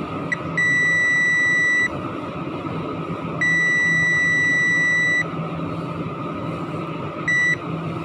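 Digital multimeter's continuity beeper sounding as the probes touch during component testing. It gives a single steady high tone in four beeps: a brief blip, two long beeps of more than a second each, and a short one near the end, over a steady background hiss.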